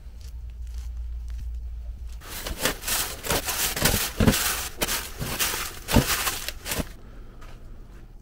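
Plastic grocery bags rustling and crinkling as food is rummaged out of a storage crate, starting about two seconds in and stopping about seven seconds in. Before that, a low steady hum with a few faint ticks.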